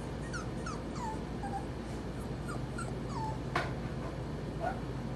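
Four-week-old puppies whimpering in short, high, falling squeaks, several a second. A single sharp click comes about three and a half seconds in.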